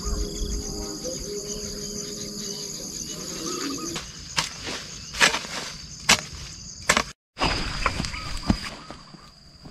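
Evening insects chirring steadily in a high band throughout. From about four seconds in, a series of sharp footsteps on the hillside ground comes about once a second, and the sound cuts out completely for a moment just after seven seconds.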